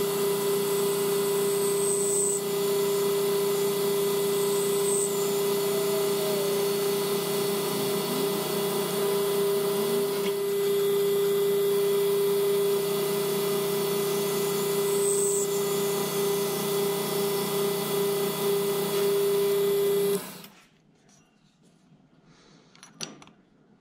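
Milling machine running steadily with a strong steady hum, its end mill cutting into a small brass rod. The machine shuts off abruptly about twenty seconds in, leaving only a few faint clicks.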